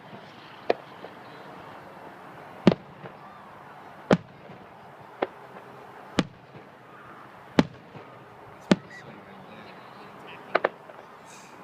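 Show fireworks exploding: a string of sharp, separate bangs about every second or so, with a quick double bang near the end.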